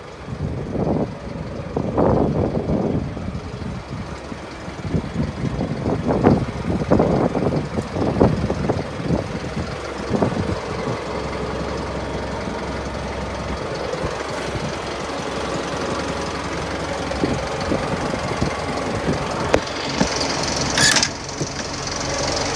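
Isuzu Elf truck's engine idling steadily, with irregular rumbling thumps over the first ten seconds and a short sharp burst of noise near the end.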